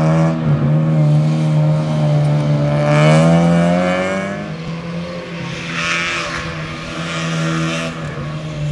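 Rally car engines revving hard through a tight special stage corner, pitch climbing over the first few seconds and then dropping away as the car passes, over a steady low drone.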